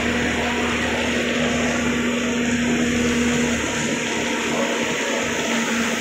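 Steady machine drone of a motor running on a concrete floor job, with a steady hum that fades out for a moment a little after the middle and comes back near the end.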